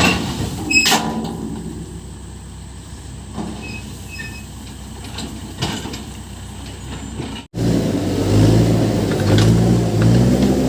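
Case 580 Super M backhoe loader's diesel engine running while it works gravel, with a few sharp clanks during the first seven seconds. After a sudden break about three-quarters of the way in, the engine is louder and its pitch rises and falls as it works under load.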